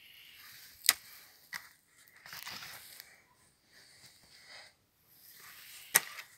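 Garden spade digging: the blade crunching and tearing into lumpy soil and turf in stretches, with two sharp knocks, about a second in and near the end.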